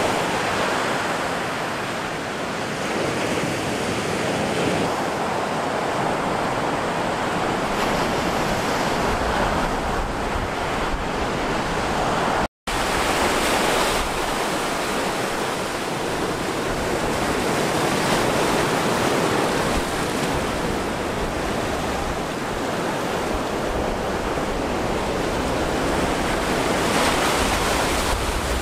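Ocean surf breaking and washing in, a steady rushing noise that swells and eases slowly. It drops out for an instant about halfway through.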